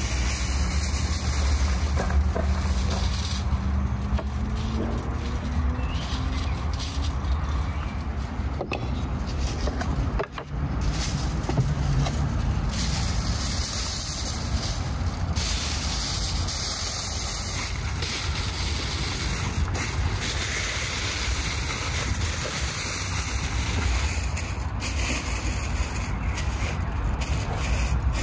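Aluminium foil crinkling and rustling as it is lifted and folded by hand, with sharp crackles over a steady low rumble.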